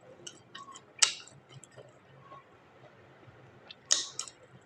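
Close-miked eating sounds: small scattered mouth and utensil clicks, with two louder sharp bursts, one about a second in and one near the end.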